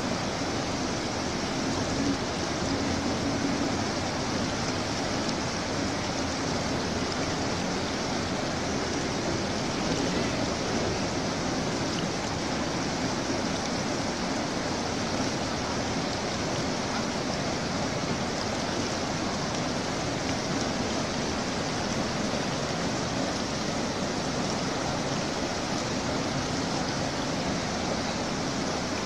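Rushing water of a shallow, rocky mountain river: a steady, even rush of water flowing over boulders.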